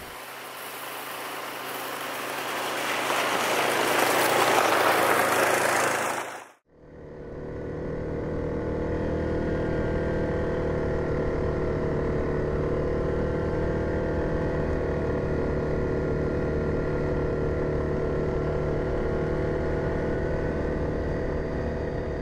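2017 Yamaha Grizzly 700 ATV engine running at a steady cruise under a rush of wind noise that grows louder over the first six seconds. The sound cuts off abruptly; the engine then carries on steady and even, without the wind.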